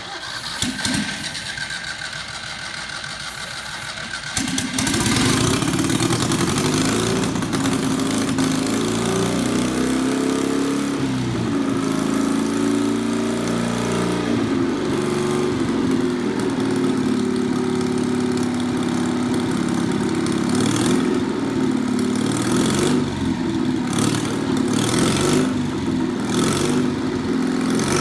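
Citroën 2CV air-cooled flat-twin engine on a scrap-built motorcycle, cold-started with a shot of starting fluid: it turns over at a lower level for about four seconds, then catches and runs loudly and steadily.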